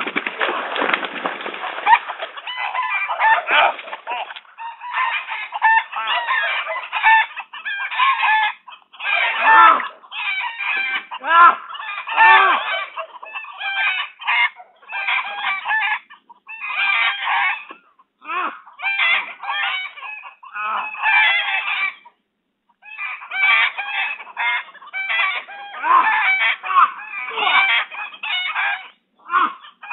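Domestic fowl clucking and squawking in an agitated, near-continuous chorus of short calls.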